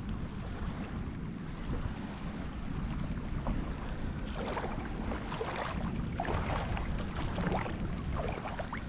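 Wind buffeting the microphone as a steady low rumble, with small wavelets lapping and splashing at the shoreline in irregular bursts from about halfway through.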